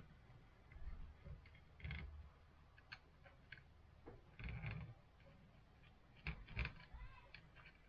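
Faint scattered clicks and light knocks from small parts being handled and fitted by hand, as a small cylindrical fitting is pushed and turned into the pivot hole of a wooden swing arm. The knocks are a little more noticeable about two, four and a half, and six and a half seconds in.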